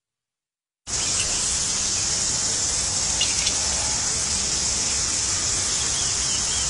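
Brief silence, then meat sizzling on a barbecue grill: a steady, high hiss with a few faint crackles about three seconds in.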